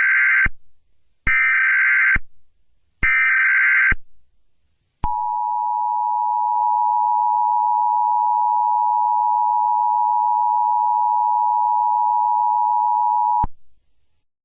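Emergency Alert System header: three short bursts of SAME data tones, then the steady two-tone EAS attention signal held for about eight seconds before it cuts off suddenly.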